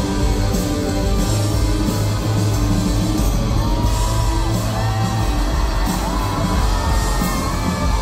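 Rock band playing live in a large concert hall, with guitars, bass and drums and singing over the top.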